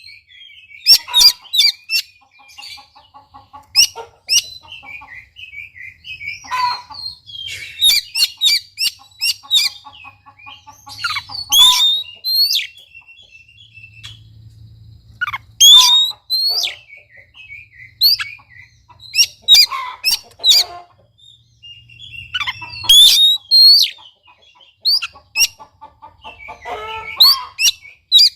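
Oriental magpie-robin (kacer) singing in full song: a loud, varied run of sharp sweeping whistles, buzzy rattles and short trills in phrases broken by brief pauses. This is the kind of song played as a lure and tutor to get a quiet caged magpie-robin singing.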